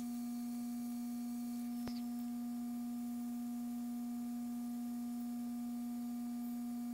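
A steady low electrical hum, one unchanging tone with fainter higher overtones, and a single faint click about two seconds in.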